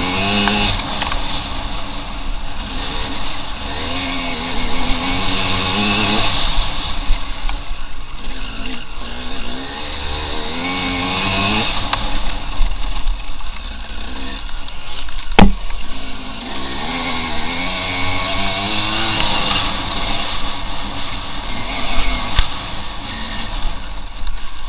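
Off-road enduro motorcycle engine being ridden, its revs rising and falling again and again over a steady rush of noise. A single sharp knock comes a little past the middle.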